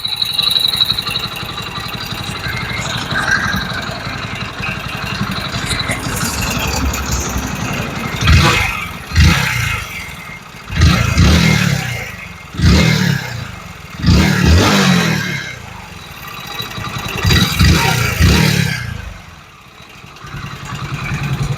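Hero Splendor BS6's single-cylinder four-stroke engine idling steadily, then revved in about six short throttle blips. The owner hears a knocking from the crank in it, and takes it for a failing crankshaft after 35,000 km.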